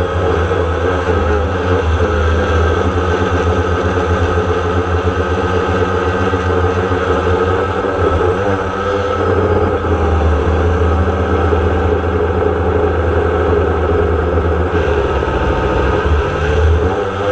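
DJI Phantom quadcopter's motors and propellers running in flight, heard from the camera on the drone: a steady hum whose pitch shifts now and then as it manoeuvres, over a low wind rumble.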